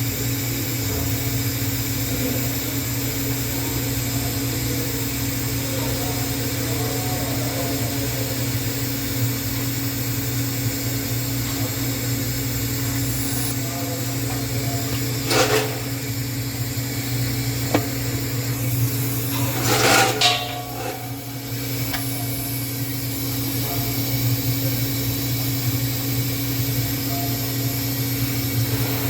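TIG welding on 304L stainless steel: a steady, even hum from the arc and welding set, with two brief louder noises about 15 and 20 seconds in.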